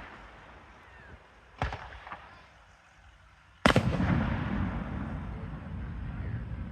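Aerial fireworks shells bursting. A sharp bang comes about one and a half seconds in, with a smaller pop just after. A louder bang follows in the middle, and its rumble trails on for several seconds.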